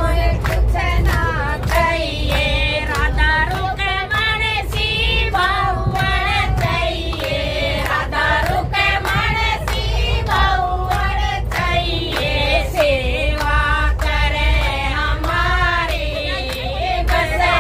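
Several women's and children's voices singing a devotional bhajan together, with hand claps keeping a steady beat. A low rumble of the moving train runs underneath.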